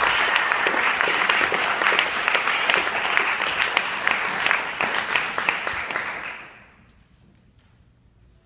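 Audience applauding with dense, many-handed clapping that dies away about six and a half seconds in. A few faint knocks follow in the quiet room.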